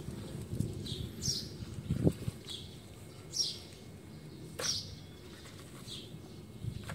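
Gloved hand scooping chunky potting chips into a plastic pot, a crunchy rustling with a louder scrape about two seconds in. A bird repeats short high chirps about once a second.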